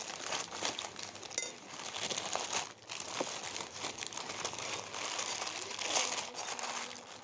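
Subway sandwich paper wrapper crinkling and rustling as it is handled, a continuous crackle that eases off near the end.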